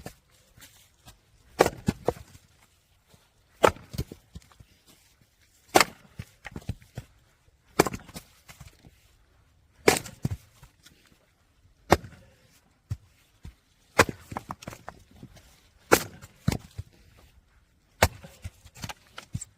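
Logs being split for firewood: a sharp, loud crack about every two seconds, nine in all, some followed by a few lighter knocks.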